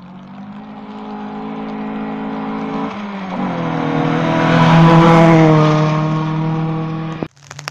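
Rally car engine at full throttle on a gravel stage, approaching and passing close by. The engine note climbs, drops at a gearshift about three seconds in, and is loudest as the car passes. The pitch then falls slightly as it goes away, and the sound cuts off abruptly near the end.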